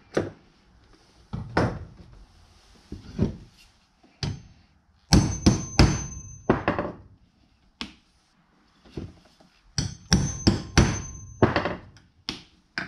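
Shears snipping through a leather strap a few times, then a hammer driving a hollow hole punch through the leather on a wooden block: two quick runs of about five sharp blows, each with a faint metallic ring.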